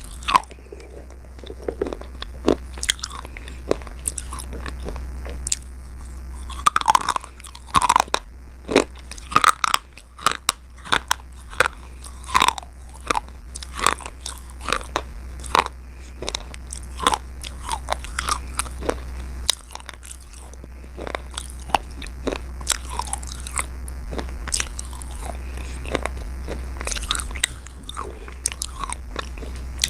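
A person biting and chewing slate, giving crisp, irregular crunches one after another.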